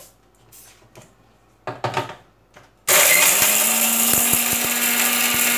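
Electric mixer-grinder dry-grinding a jar of roasted whole spices (cinnamon, cloves, cardamom, black pepper, cumin, bay leaves, dried red chillies) into masala powder. A few quiet clicks come first as the jar is set on the base. About three seconds in, the motor starts with a loud, steady whir, which cuts off abruptly at the end.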